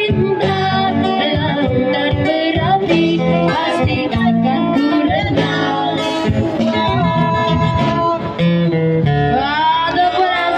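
Live street-band music: a singer with acoustic guitar and band accompaniment.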